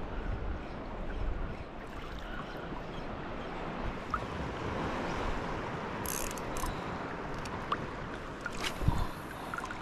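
Steady wash of sea water and wind along the shore, with a few short, light clicks.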